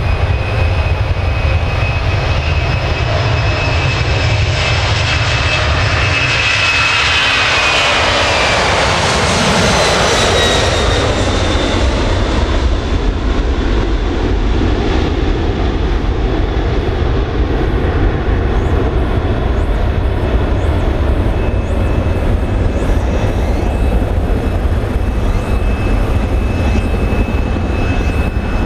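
Boeing 767-300's twin General Electric CF6-80C2 turbofans at takeoff thrust: a high steady fan whine over a low rumble during the takeoff roll, swelling and falling in pitch as the jet passes about eight to ten seconds in. A heavy, steady rumble follows as it climbs away.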